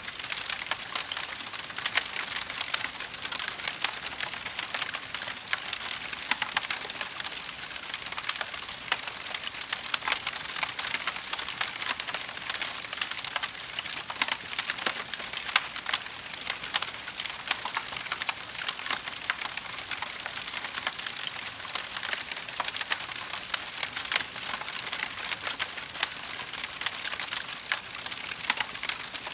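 Fire crackling: a dense, steady stream of small snaps and pops.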